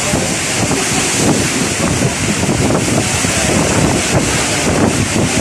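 Monsoon squall: strong gusting wind buffeting the microphone over the steady hiss of heavy rain.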